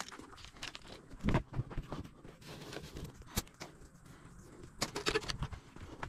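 Dry twigs, pine needles and paper crackling and crunching as they are handled for kindling, with a sharp snap about three and a half seconds in. Footsteps crunch on dry, needle-covered ground near the end.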